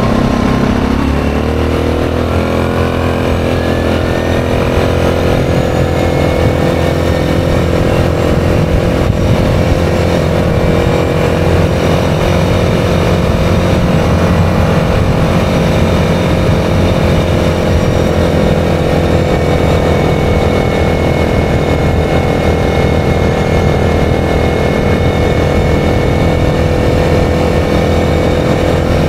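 ATV engine pulling up through the revs for about two seconds, then holding a steady cruising speed on the road, with wind rumble on the microphone.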